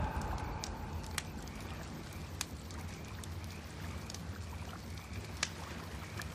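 Fire crackling faintly: a few scattered sharp pops over a low steady rumble.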